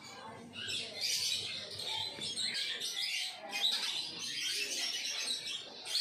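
A pair of house sparrows, male and female, chirping in a quick, continuous run of short high calls.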